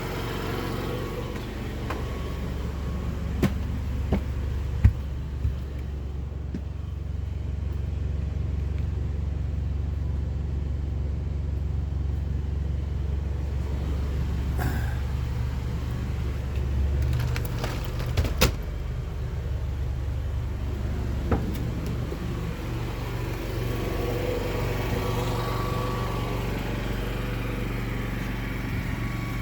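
Yamaha NPS 5500 generator engine running steadily under an air-conditioner load, with a low hum that shifts in pitch about halfway through. A few sharp knocks come over it, one near the start and a couple more about halfway through.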